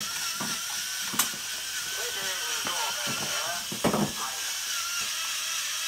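Home-built robot giving out warbling, gliding electronic tones over a steady hiss, with a sharp click about a second in and a knock about four seconds in.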